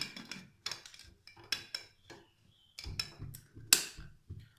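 Aluminium inner-lid pressure cooker being closed: a series of light metal clinks and knocks from the lid and handles as the lid is seated and the handles are brought together, the loudest a little before the end.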